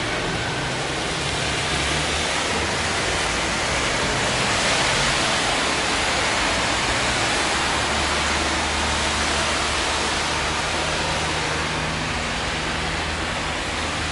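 Traffic on a rain-soaked city street: a steady hiss of tyres on wet asphalt over a low engine rumble, swelling to its loudest about five seconds in.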